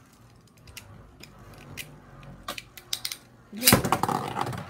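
Small plastic clicks as a Beyblade spinning top is fitted to a string launcher, then near the end a sudden loud rip of the launcher's cord as the top is launched into a plastic Beyblade stadium, where it spins and clatters.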